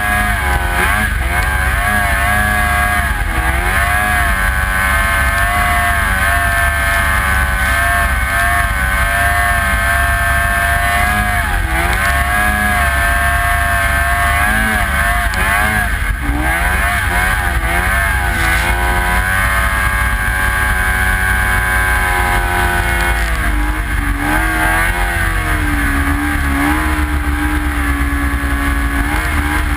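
Snowmobile engine running hard at high revs, its pitch dipping and climbing again several times as the throttle eases and opens, over a steady low rumble.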